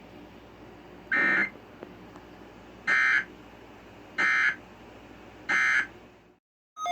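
Emergency Alert System digital data tones sounding after a tornado warning: four short, harsh buzzy bursts, each about a third of a second long and spaced a little over a second apart. These are the end-of-message bursts that close an alert. The audio cuts out shortly after the last one.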